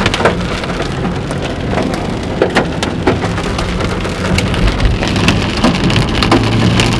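Hailstones and heavy rain pelting a car's roof and windshield, heard from inside the cabin: a dense patter broken by irregular sharp taps.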